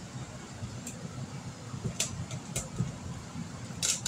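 Uneven low rumble of a phone being handled while it is carried, with a few light sharp clicks: one about two seconds in, another a little later, and two close together near the end.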